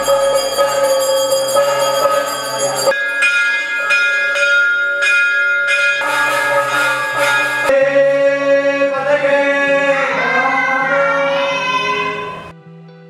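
Temple bells and a hand-held metal gong ringing with sustained, shimmering metallic tones. They start suddenly and change abruptly a few times, with wavering pitched tones over them near the end, then fade away shortly before the end.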